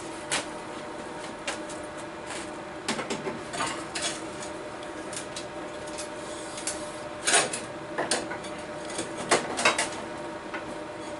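Scattered metallic clinks, clicks and knocks of tools and parts being handled, over a steady low hum, with louder clatter about seven seconds in and again near the end.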